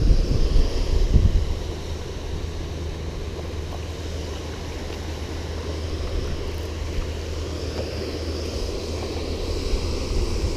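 Wind buffeting the microphone for the first second or so, over a steady low rumble of water pouring through a dam's spillway gates.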